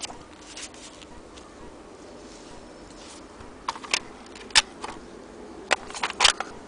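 Irregular sharp mechanical clicks and clacks from a vintage Good Companion 3 manual typewriter being handled: a few faint ones early, then a quick cluster over the second half.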